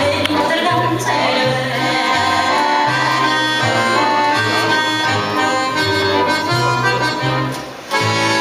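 Live klezmer instrumental: accordion playing a melody of long held notes over a stepping line of low bass notes from the double bass. The music dips briefly near the end, then comes back in at full level.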